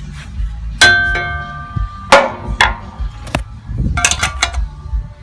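Hammer blows tapping a stainless steel strip clamped in a vise to bend it, each strike ringing metallically. About half a dozen irregular taps, the loudest about a second and two seconds in, then a quick flurry near the end.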